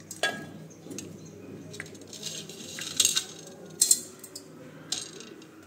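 Stainless steel mixer-grinder jar holding raw green peas being handled as ingredients go in, giving scattered sharp metallic clinks and taps, about six in all, with faint rattling between.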